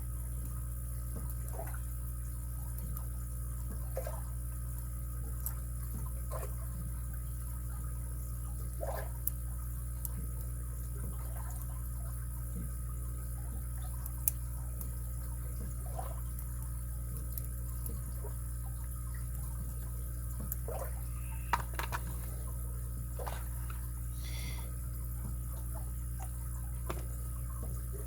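Steady low hum with faint, scattered small clicks and ticks of lock picks and a tension tool working inside a padlock, with a few sharper clicks about halfway through and again a little later.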